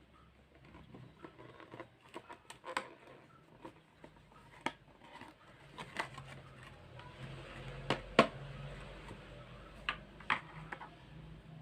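Scattered clicks, taps and light rustles from small objects being handled by hand, with the loudest pair of clicks about eight seconds in.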